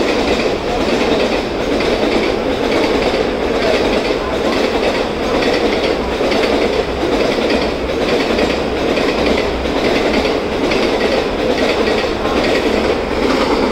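Coaches of a passenger express train running through at speed without stopping, their wheels clattering over the rail joints in a steady rhythm over a continuous rumble.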